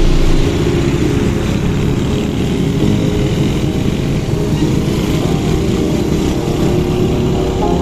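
Several Honda Win 100 motorcycles' small single-cylinder four-stroke engines running steadily as the bikes ride past at cruising speed.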